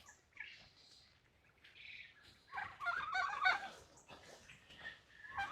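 Domestic turkeys calling: a few soft calls at first, then a louder run of quavering calls from about halfway through.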